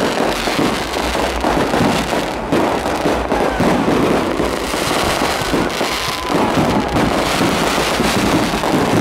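Dense barrage of aerial firework shells bursting overhead, with many bangs and crackles overlapping without a break.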